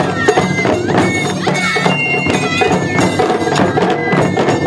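Japanese festival-style dance music: a high, piping wind melody that slides between notes over a steady low drone, with frequent drum hits.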